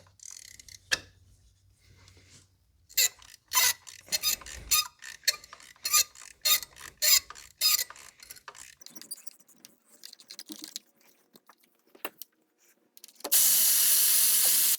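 Socket ratchet clicking in a run of quick strokes as the last spark plug is worked out of the BMW N55 inline-six head. Near the end comes a steady hiss with a low hum lasting about a second and a half.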